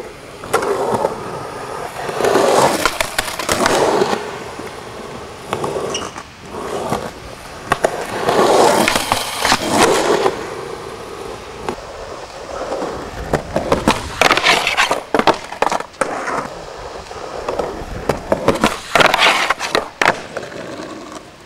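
Skateboard wheels rolling in repeated swells, broken by sharp clacks of the board popping and landing several times over.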